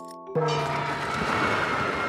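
Cartoon sound effect: a held chord of several steady tones cuts off about a third of a second in. A loud rushing noise with a thin, slowly rising whine takes over, vehicle-like.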